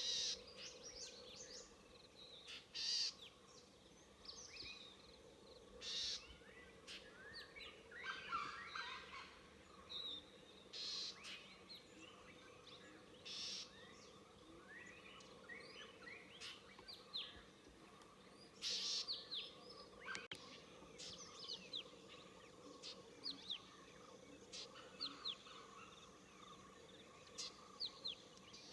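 Several wild birds calling and singing: many short, quick chirps and whistles, with a few louder calls in between, over a faint steady drone.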